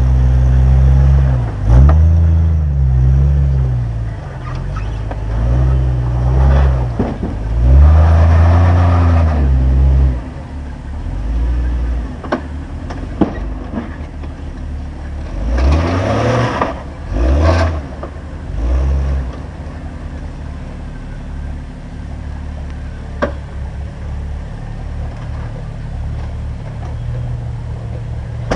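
Jeep Cherokee XJ engine revving up and down in repeated bursts under load as the Jeep crawls over a boulder, with a few sharp knocks and two louder noisy surges in the middle. For the last third it settles to a lower, steady running.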